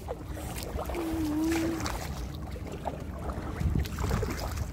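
Kayak paddle strokes dipping and splashing in lake water, over a low rumble of wind on the microphone. A short low hum sounds about a second in.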